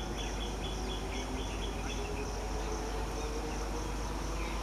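Insects chirping in a steady pulsing rhythm, about two pulses a second, with a quick run of higher chirps in the first two seconds, over a low steady rumble.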